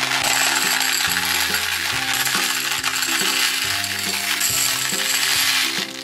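Many small round hard candies pouring from a glass jar and clattering into a plastic toy bathtub, a continuous rattle that stops just before the end. Background music with a bass line plays underneath.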